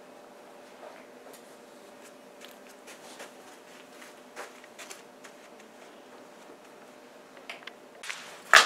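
Quiet room tone with a faint steady hum and scattered light clicks and rustles of a pen writing on paper and someone moving about. Near the end comes a sudden loud burst of noise.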